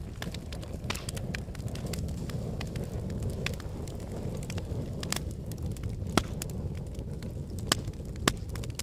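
Fire crackling in a fireplace: a steady low rumble with irregular sharp pops and snaps, the loudest ones about six seconds in and twice near the end.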